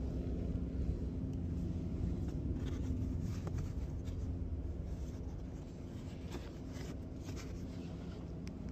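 Supermarket ambience: a steady low hum, as of the refrigerated display cases, with faint rustling and a few light clicks.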